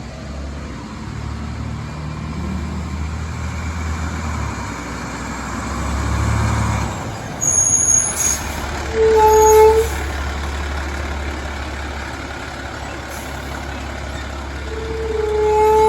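Fire truck's diesel engine running and revving up about six seconds in, with two horn blasts: a short one about nine seconds in and a longer one near the end.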